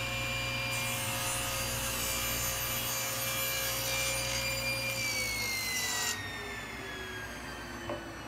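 Table saw ripping a block of East Indian rosewood to width, the blade cutting through the wood for several seconds over the motor's steady whine. About five seconds in the cutting stops and the whine falls steadily in pitch as the blade spins down.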